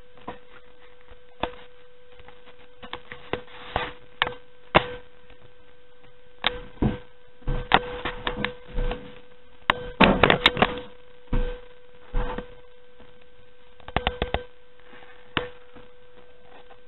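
Scattered clicks, taps and knocks as a computer motherboard and its metal case are handled, with a short burst of clatter about ten seconds in, over a steady faint hum.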